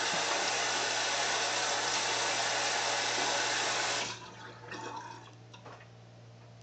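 Bathroom sink tap running in a steady rush, shut off abruptly about four seconds in, followed by a few faint splashes and handling sounds.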